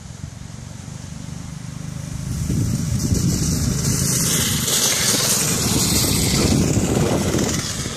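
Homemade go-kart's Honda 160 cc single-cylinder four-stroke engine, getting louder as the kart drives up across the grass and running hard as it passes close from about three to seven seconds in, easing off briefly near the end.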